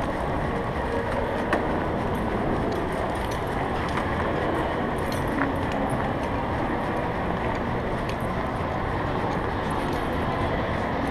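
Steady background noise of a busy shopping mall while walking, with a metal chain dog leash clinking now and then.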